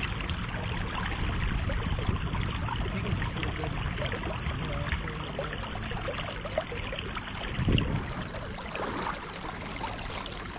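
Steady rush of flowing river water, with a brief low thump about eight seconds in.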